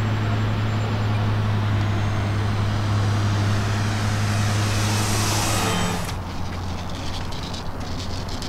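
Radio-controlled model airplane engine droning steadily as the plane makes a close pass, its propeller hiss swelling as it nears. About six seconds in the sound cuts abruptly to a quieter, more distant engine drone.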